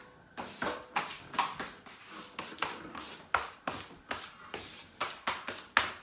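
A plastic bench scraper scraping a marble countertop in quick repeated strokes, about three a second, clearing up flour and scraps of dough.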